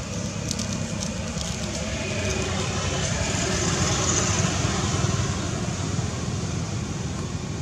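Steady low outdoor rumble with a hiss over it, growing louder to about halfway and then easing off.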